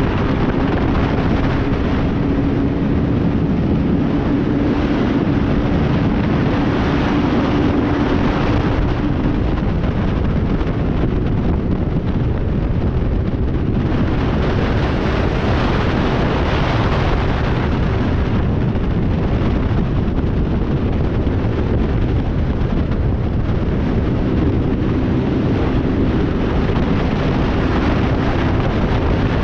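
Motorcycle riding at highway speed: heavy wind rush on the microphone over a steady engine drone. The wind grows louder for a few seconds around the middle.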